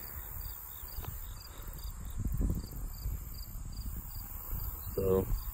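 Insects chirping in an even rhythm, about two chirps a second, over a steady high hiss, with wind rumbling on the microphone.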